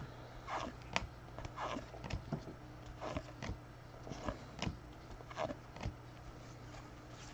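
Trading cards being handled and flipped through: irregular soft clicks and rustles, about a dozen, over a steady low hum.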